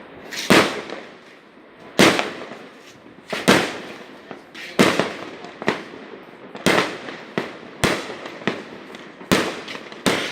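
Fireworks and firecrackers going off in an irregular series, a sharp bang about every second, each with a short trailing echo.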